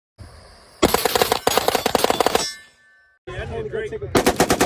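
Bursts of fully automatic gunfire, rapid shots at more than ten a second: one burst of about a second and a half, then after a pause a short voice, and a second burst starting near the end.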